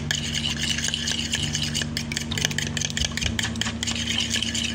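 Two raw eggs being beaten by hand with a utensil in a plastic bowl: a fast, steady run of ticks as the utensil strikes the bowl and churns the egg.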